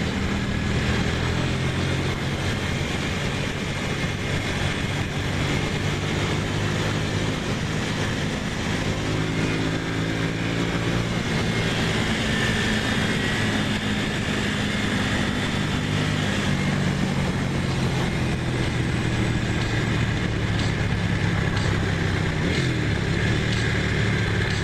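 Ducati Monster's V-twin engine running under way, its pitch stepping up and down with the throttle and gears, over steady wind noise.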